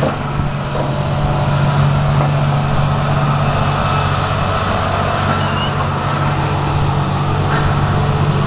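Heavy diesel engine of logging equipment running steadily at constant speed, with a light clank near the end.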